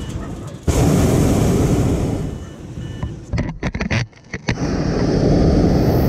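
Hot air balloon's propane burner firing: a loud, dense blast that starts suddenly about a second in. It breaks up into short choppy bursts around the middle, then burns steadily again.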